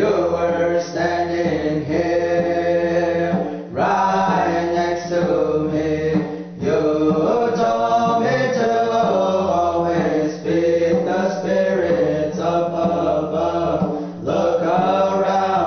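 Pueblo hand drum song sung by a group of men in long chanted phrases. Brief breaths between phrases come every three to four seconds.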